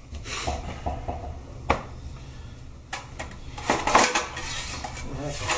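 Metal tools or knives being handled and set down: a few sharp clinks and knocks, the loudest cluster about four seconds in.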